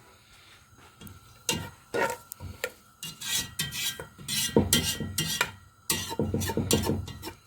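Sesame seeds toasting in oil being stirred in a cooking pot, with a run of quick scraping strokes against the pot that starts about a second and a half in and pauses briefly near the end.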